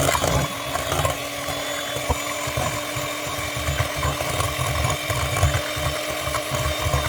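Electric hand mixer running steadily, its beaters churning through banana bread batter, with a constant motor hum over a rumbling low clatter.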